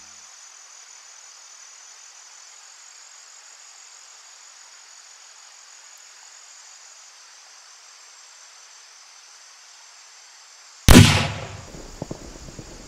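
A faint steady hiss of still winter air, then, near the end, a single loud gunshot that rings out and dies away over about a second. The shot fells the deer.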